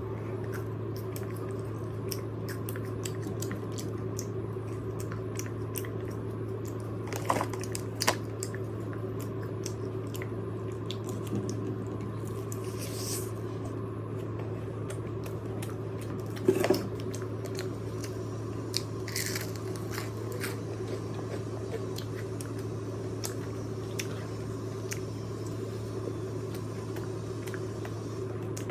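Close-miked eating of fried chicken: crunchy bites and chewing, with a few louder crunches about seven, eight and sixteen seconds in, over a steady low hum.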